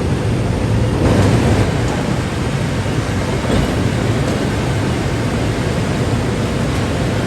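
Steady loud industrial rumble and hiss of steel-mill machinery, swelling briefly about a second in.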